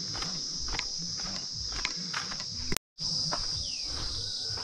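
Steady, high-pitched chorus of evening insects, with soft footsteps on a paved path. The sound drops out completely for a moment about three seconds in, at an edit.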